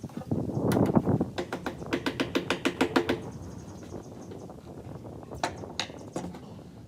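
Workshop hand-tool noise on wood: a quick run of sharp clicks, about seven a second, then a few single knocks.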